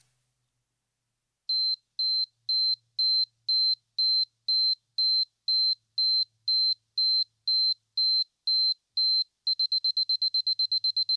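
Camera self-timer counting down: a steady, high-pitched beep about twice a second, speeding up to rapid beeping near the end as the shutter is about to fire.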